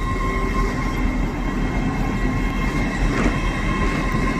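A train moving slowly through the station: a steady rumble with a high-pitched whine held on one note.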